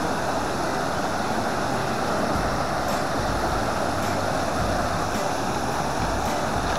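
Waterfall cascading down a rocky creek bed: a steady, even rush of falling water.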